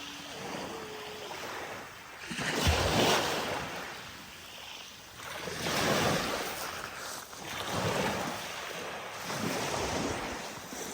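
Waves washing on the shore, swelling and fading every two to three seconds, mixed with wind on the microphone.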